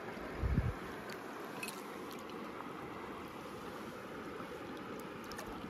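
South Platte River current running steadily over shallow water, with a single soft low bump about half a second in.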